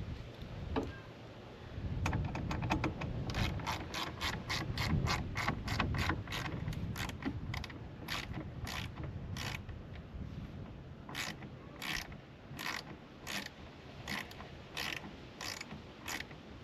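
Hand socket ratchet clicking as mounting bolts are tightened down: fast runs of clicks about three a second, a short pause, then slower, spaced strokes.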